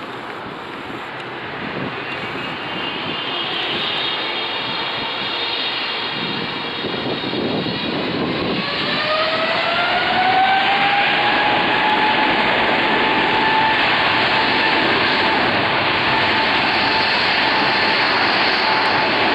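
Boeing 777-300ER's GE90-115B turbofan engines spooling up to takeoff thrust. The jet noise grows louder, and about halfway through a whine rises in pitch, then holds a steady high tone.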